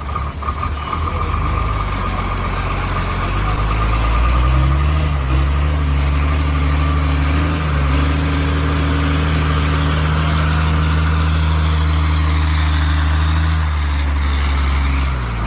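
Iveco semi truck's diesel engine running, revving up about four seconds in and then holding a steady pitch as the truck moves slowly past, before dropping back near the end.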